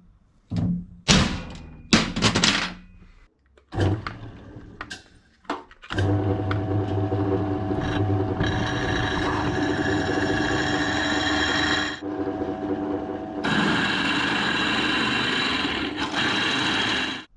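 A hammer striking a centre punch into a steel bar a few times, then a drill press running and drilling into the steel, with a high whine while the bit cuts. The cutting eases off briefly about twelve seconds in, resumes, and stops suddenly near the end.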